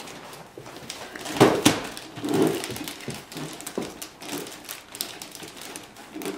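Handling of a large wrapped gift box: two sharp knocks about a second and a half in as it is set down, then scattered rustling and knocks of wrapping paper and ribbon as a child tugs at it.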